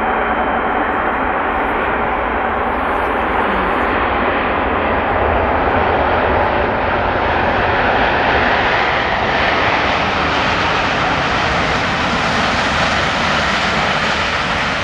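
Boeing 737 jet airliner rolling out on the runway just after touchdown, its engines giving a steady, loud roar. About a third of the way in, the roar turns brighter and louder in the hiss as the aircraft comes nearer.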